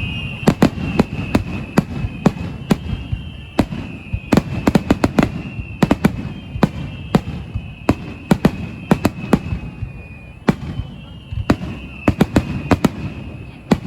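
Fireworks finale: aerial shells bursting in rapid, irregular succession, many sharp bangs over a low rumble. A faint high thin tone runs underneath.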